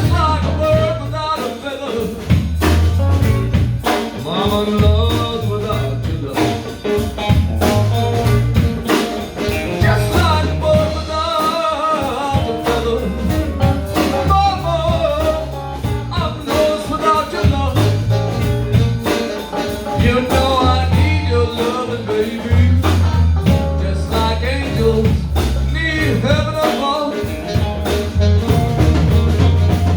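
Live blues band playing: walking bass, drums and a lead instrument soloing over the groove.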